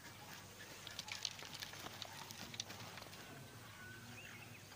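Faint crackling and rustling, a cluster of small clicks in the middle, with a few short bird chirps near the end.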